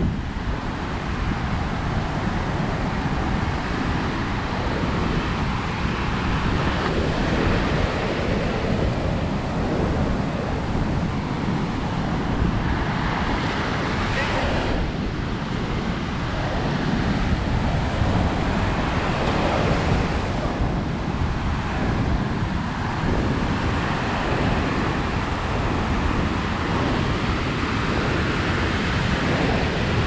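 Ocean surf breaking and washing up a sandy beach, a steady rushing noise, with wind buffeting the microphone.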